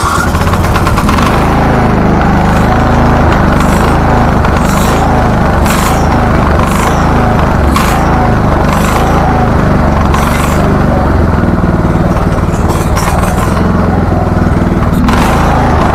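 Husqvarna riding mower's Briggs & Stratton engine starts on choke and runs steadily. Its sound swells and eases about once a second.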